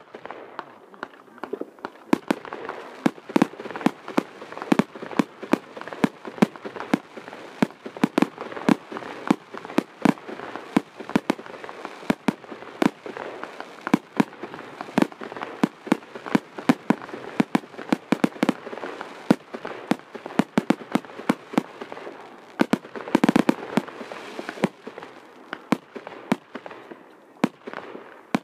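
Aerial fireworks bursting in a rapid, continuous string of sharp bangs, about two or three a second, with a thick flurry of reports about three-quarters of the way through.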